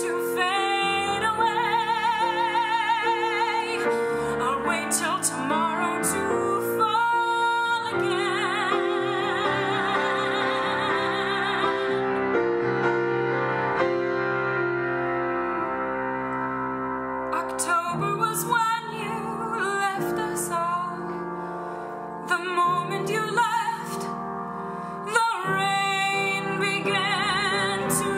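A woman singing a slow song with wide vibrato on long held notes, accompanied by piano. The phrases are long and sustained at first, then shorter and broken by brief pauses toward the end.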